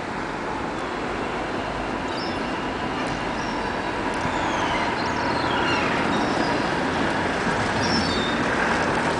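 Steady rushing background noise that slowly grows louder, with a few faint, short, high calls of gulls over it.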